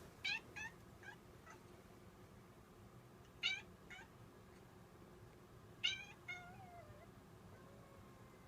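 Domestic cat giving short, high-pitched, puppy-like yelping howls in pairs, three times over.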